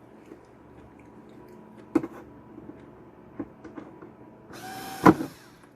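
Small power screwdriver briefly whirring for about a second near the end, backing out the tiny screws of a Keurig coffee maker's housing, with a sharp click partway through. A few light clicks of screws and plastic parts come before it.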